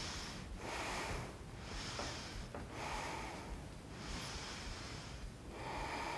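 A woman's audible breathing: a steady run of slow inhales and exhales, each a soft rush of air about a second long with short pauses between.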